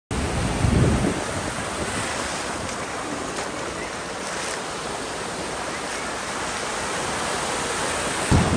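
Ocean surf washing and breaking in the shallows, a steady rush of water. Wind buffets the microphone in low gusts about half a second in and again near the end.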